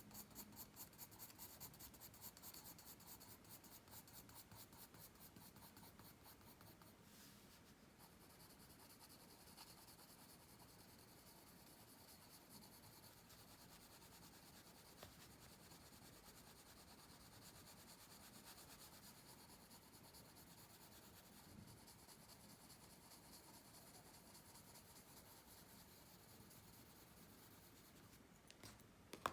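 Faint pencil-on-paper scratching: quick, rhythmic back-and-forth shading strokes for the first several seconds, then steadier, softer strokes.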